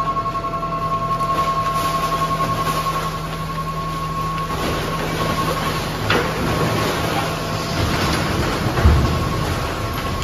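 Garbage truck running with a steady whine while its load of bagged trash slides out of the tipped body onto the tipping floor. The rustling and thudding of falling garbage grows from about four and a half seconds in, with the loudest thump near nine seconds.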